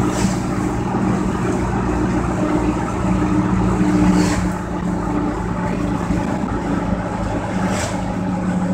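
1978 Chevy K-10 pickup's engine and road noise heard from inside the cab while cruising at a steady speed, the engine warmed up with its thermostat open. A brief rush of noise passes three times.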